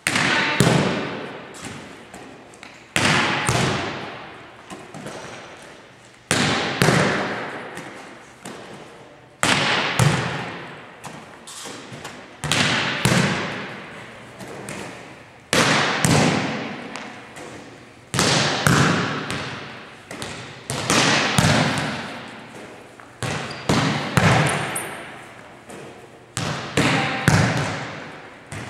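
Volleyball struck over and over in an echoing gymnasium: a sharp smack, often followed about half a second later by a second contact, about every three seconds, each ringing out and fading. These are the coach hitting balls and the libero digging them with forearm passes.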